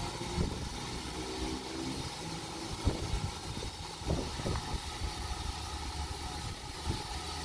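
GWR pannier tank steam locomotive and its coaches at a station platform: a steady low rumble with a handful of sharp clanks and knocks scattered through it.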